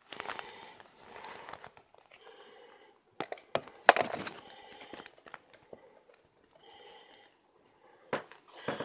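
Close rustling and crinkling as the camera is handled in the dark near a dog, with several sharp clicks and knocks, the loudest about four seconds in.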